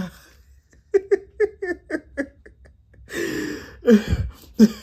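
A man laughing hard: a quick run of about six short "ha" bursts, then a longer, louder stretch of laughter and gasping. A low thump comes about four seconds in.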